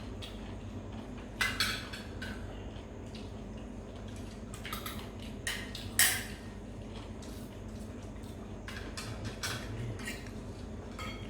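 Tableware clinking and knocking during a meal: plates, bowls and cutlery handled in scattered short clicks, with the loudest knock about six seconds in.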